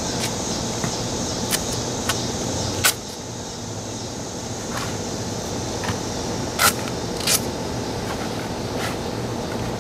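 Motorcycle engine idling steadily, with a handful of short sharp clicks over it.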